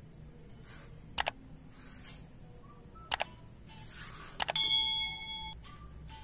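Like-and-subscribe animation sound effect: a few soft whooshes and sharp mouse-style clicks, then a short bell-like ding about four and a half seconds in that rings for about a second.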